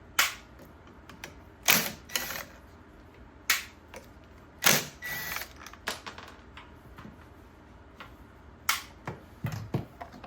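Irregular sharp clicks and knocks of metal tools and parts being handled during repair work, about ten in all, a few with a brief rattle after them.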